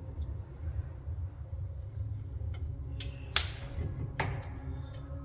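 Light metallic clicks and a sharper clink about three and a half seconds in, from brake caliper parts and a hand tool being handled while the rear caliper piston is wound back in. A steady low hum runs underneath.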